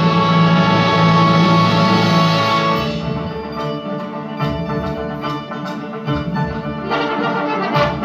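Ukrainian folk-instrument orchestra of banduras, domras, cimbaloms and strings playing live. A loud, full held chord gives way about three seconds in to a quieter run of rapid, evenly repeated plucked and struck notes.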